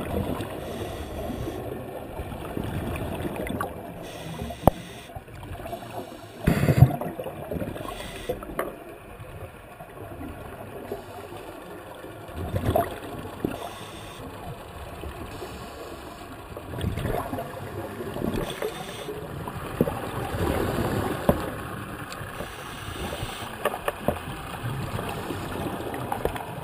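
Underwater sound heard muffled through a waterproof camera housing: scuba divers' exhaled regulator bubbles gurgling over a steady rumble, swelling every few seconds with each breath.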